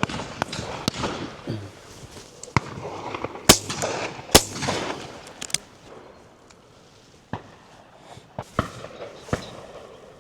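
Shotguns firing at driven pheasants along a line of guns: a dozen or so irregular shots, most of them distant, the two loudest about three and a half and four and a half seconds in.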